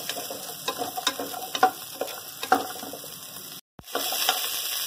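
Small onions sizzling in hot oil in an aluminium pressure cooker, with a spatula scraping and tapping against the pot in irregular strokes about twice a second. The sound drops out for a moment near the end.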